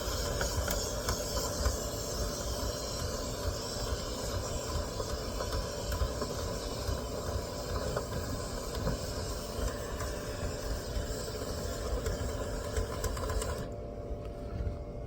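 Compressed air hissing out of a reverse sweep hose as it is pushed through a dryer vent duct, with small rattling clicks against the duct. The high hiss cuts off abruptly near the end, leaving a low rumble.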